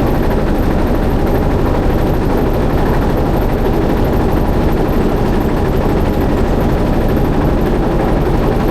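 Motorboat engine running steadily with a rapid, even chugging.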